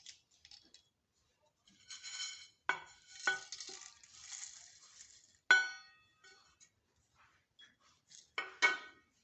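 Pieces of cinnamon stick being broken and dropped into a spice-grinder jar: soft rustling and several hard clinks. The sharpest clink, about halfway through, rings briefly, and a pair of ringing clinks comes near the end.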